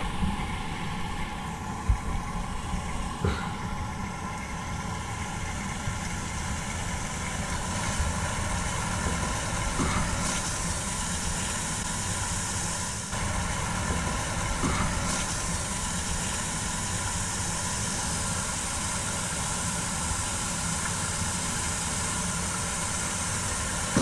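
Water from a garden hose running at full flow down an old buried drainpipe, a steady rushing rumble with a few light knocks. The pipe takes the flow without backing up, a sign that the drain is clear.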